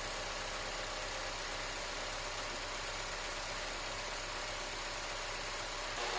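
Car engine idling steadily. Near the end it grows slightly louder and a higher hum comes in.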